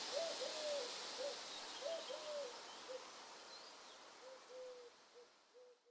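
Faint hooting calls: a series of short, arched notes at an irregular pace, over a soft outdoor hiss with faint high chirps, all fading out towards the end.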